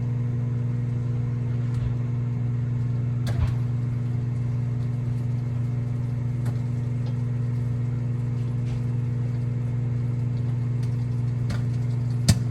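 Microwave oven running with a steady electrical hum while cooking a bag of microwave popcorn. A few sharp pops are heard, the loudest about three seconds in and near the end, as the first kernels pop.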